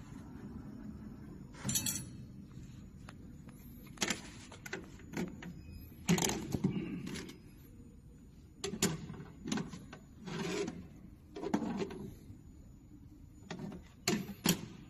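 Metallic clanks and rattles from a CNC wire bending machine and bent steel wire, about a dozen of them, some brief and some lasting about a second, over a low steady hum.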